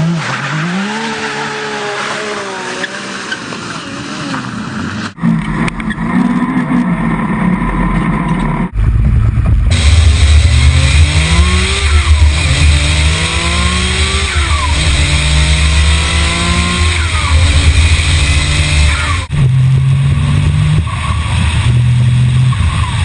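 Bugatti's quad-turbocharged W16 engine accelerating hard through the gears, the revs climbing and dropping back at each upshift, heard in several short clips with abrupt cuts between them.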